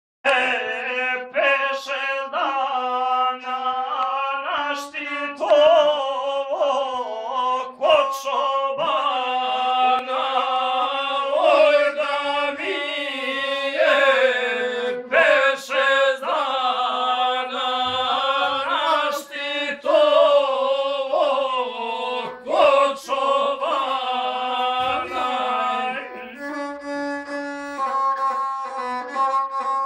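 Gusle, the single-string bowed folk fiddle, played solo: a quick, wavering, ornamented melody that keeps returning to one steady low note.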